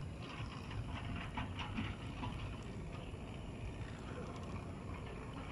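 Low steady rumble of wind on the microphone, with faint scattered clicks during the first couple of seconds.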